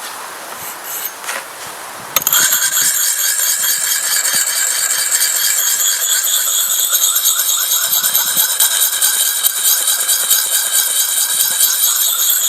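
Whetstone rubbed wet along an axe's cutting edge: light scraping, then about two seconds in a loud high-pitched squeal sets in abruptly and holds steady, wavering slightly.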